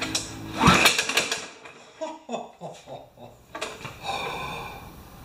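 Recoil starter rope pulled on a Powermore lawn mower engine with the spark plug lead off: a whir as the engine spins over, then a few clattering strokes as it coasts down.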